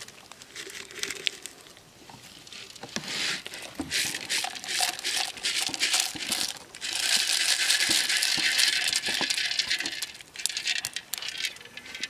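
Boiled river snails tipped from a clay pot into a woven bamboo basket: scattered clicks of shells at first, then about three seconds of dense clattering and pouring as the snails and their cooking water run into the basket, then a few last clicks.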